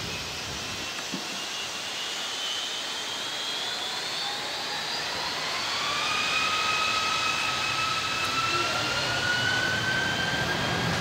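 Turbofan engines of a twin-engine jet airliner spooling up for takeoff: a steady rush under a whine that climbs slowly in pitch and grows louder from about a third of the way in.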